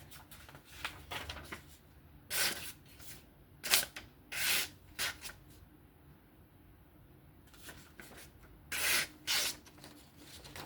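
Several short, hissing rubbing swishes, a few of them in pairs, from a folding knife being handled and its edge examined.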